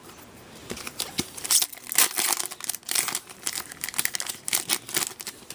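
Crinkling and rustling of a hockey trading-card pack's wrapper and cards being handled, as an irregular run of crackles.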